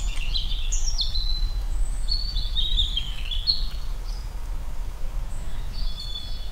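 AI-generated forest ambience from the Stable Audio Open model: birds chirping over a steady low rumble. The chirps are busiest in the first three seconds or so, thin out, and pick up again near the end.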